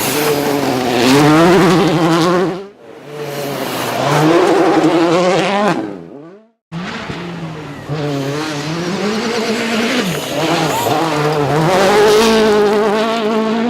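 World Rally Cars' turbocharged 1.6-litre four-cylinder engines driven hard, the engine note rising and falling through gear changes and throttle lifts. Three separate passes are cut together, with a short silent break about six seconds in.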